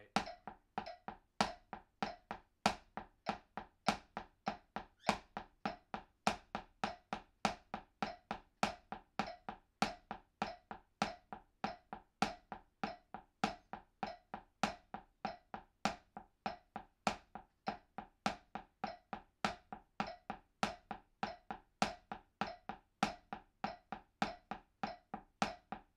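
Wooden drumsticks tapping a makeshift practice pad of books under a washcloth in a single stroke roll, hands alternating left-right with the left leading. The strokes fall evenly at about three a second, at a slow practice tempo of 100 bpm.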